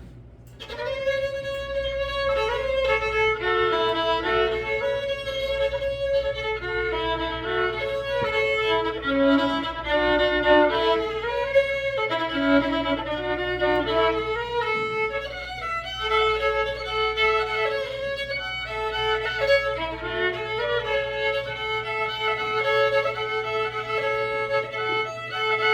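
Solo old-time fiddle playing a lively tune, starting about a second in, a steady drone note held under the moving melody.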